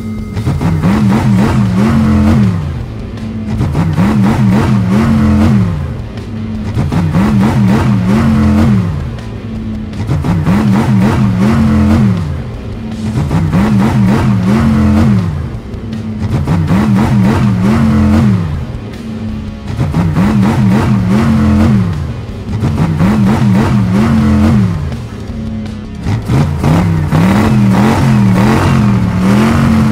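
Monster truck engines revving, rising and falling in pitch in an even repeating cycle about every three seconds, over background music.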